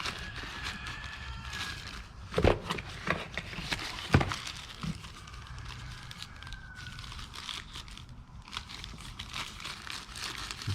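Rummaging by hand through a box of old floppy disks and cassette tapes: paper and plastic crinkling and rustling, with two sharp knocks of items bumping together about two and a half and four seconds in.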